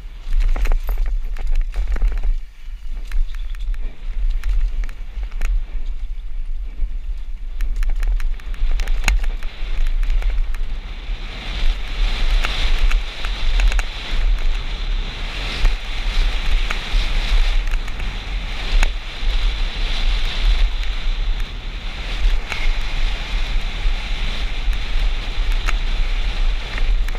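Wind buffeting the microphone of a camera on a downhill mountain bike tearing down a dirt trail, over a constant clatter of small ticks and knocks from the tyres on dirt and stones and the bike rattling. The rush turns brighter and hissier about ten seconds in.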